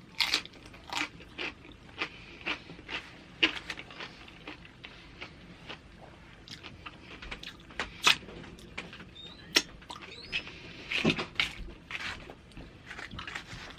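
Close-miked chewing of loaded tortilla-chip nachos: irregular crisp crunches and wet mouth clicks, a few louder crunches among them.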